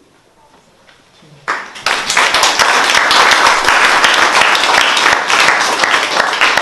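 A small audience applauding, starting suddenly about a second and a half in after a short quiet.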